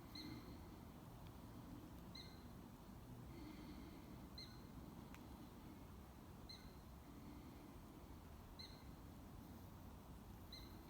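Near silence outdoors, with a faint bird giving a short high chirp about every two seconds, six times in all.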